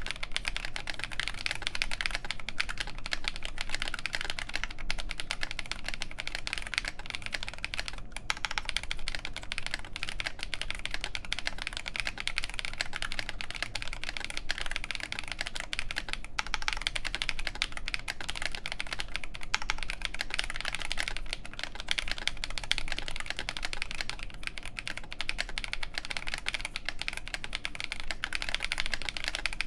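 Continuous fast typing on a Nooir Noland N1 mechanical keyboard with OneKey Momo Oolong linear switches, a full FR4 plate and MTNU Graphite keycaps: a dense stream of key clacks, with brief pauses about eight and sixteen seconds in.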